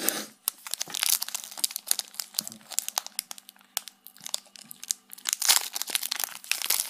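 Foil wrapper of a Pokémon TCG booster pack crinkling as it is handled, with the crackle growing denser and louder near the end as the pack is torn open.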